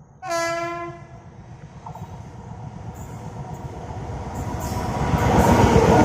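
Train horn sounds one short blast near the start, then the Rajdhani Express comes on with a rumble and rattle of wheels on rails that grows steadily louder as it approaches.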